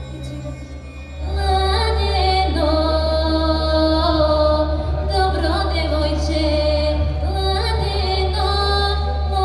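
A woman sings a Bulgarian folk song solo into a microphone over a steady low backing drone. Her voice comes in about a second in, with long held notes.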